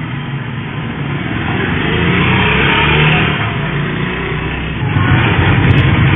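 A motor vehicle engine running amid rough, noisy background sound. It grows louder about two seconds in, and the sound changes abruptly near the end.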